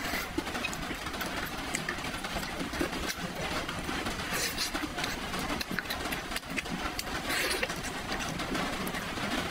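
Close-miked chewing of soft, sticky braised pork trotter: a run of small wet mouth clicks over a steady hiss.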